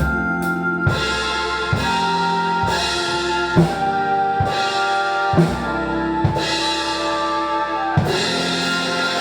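Drum kit played along with a backing track: bass drum and snare strikes about once a second over steady sustained music, the last strike about eight seconds in, with the backing track carrying on after it.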